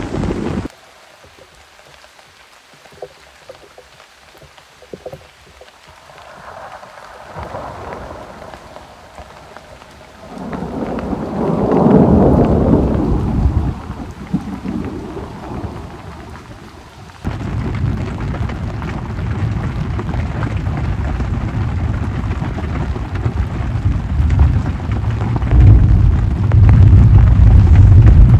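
Rain and rolling thunder. After a quiet stretch with a few scattered drops, a loud thunder rumble swells and fades about a third of the way in. Heavier steady rain then sets in suddenly, with another deep rumble near the end.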